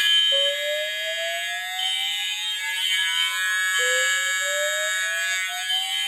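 Fire alarm sounding: a steady, shrill horn tone with a slow rising sweep underneath, the sweep starting over again about three and a half seconds after it begins.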